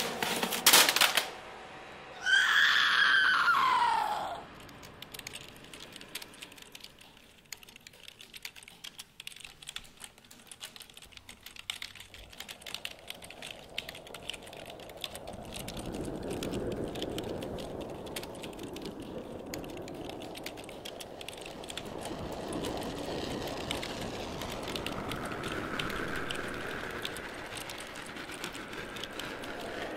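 Rapid computer keyboard typing, a dense clatter of key clicks. In the first second or so there are loud knocks. Then a loud sound slides down in pitch for about two seconds, and a low hum builds under the typing from about halfway through.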